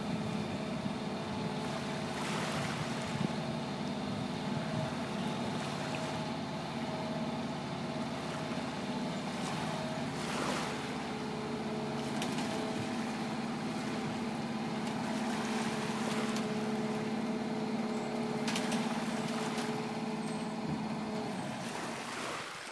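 Amphibious catamaran's engine running steadily as the boat drives on its wheels up a shingle beach, then shutting off shortly before the end.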